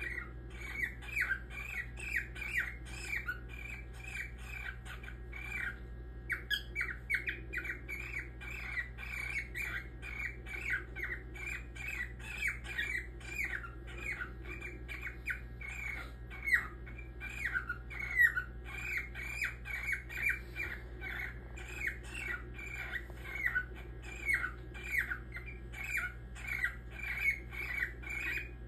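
Grey cockatiel calling in a long run of short calls, about two or three a second, each dropping in pitch, with a brief pause about six seconds in.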